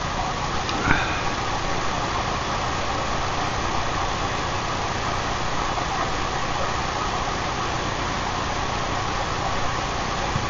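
Steady mechanical noise with a faint low hum, a constant hiss-like background throughout; a short high squeak rises about a second in.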